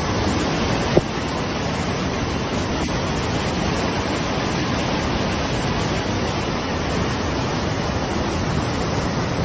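Floodwater churning over a dam spillway in a steady rush of noise, with a brief click about a second in.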